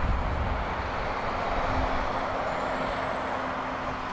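Jet engines of a Boeing 777-200ER on its landing rollout, a steady roar with a faint high whine coming in about halfway through.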